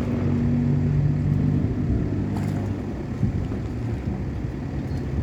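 An engine or motor running steadily, a low hum whose pitch shifts slightly about a second or two in.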